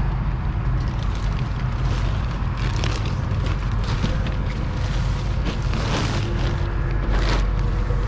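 Plastic wrapping on new mattresses crinkling and rustling in a few bursts, the strongest about six and seven seconds in, over a steady low rumble.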